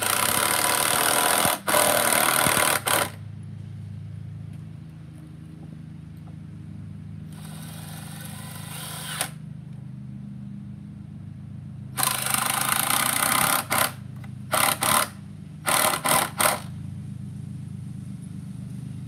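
Cordless screw gun driving wood screws into lumber. There are three runs of a couple of seconds each, then several quick short bursts about three-quarters of the way in, over a steady low hum.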